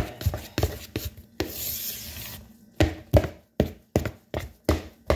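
A spoon beating pancake batter in a plastic mixing bowl, knocking and scraping against the bowl in a quick rhythm of about three strokes a second, with a brief scraping hiss about a second and a half in.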